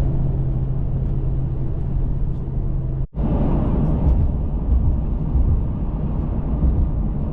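Pickup truck on the road, towing a travel trailer: a steady low engine drone and road rumble with a constant hum. The sound briefly cuts out about three seconds in and then resumes.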